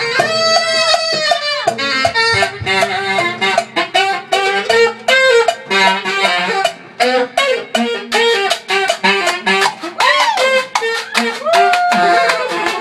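Live saxophone solo over a band: fast runs of notes with drum hits under them, and a long held note that bends down at the start and again near the end.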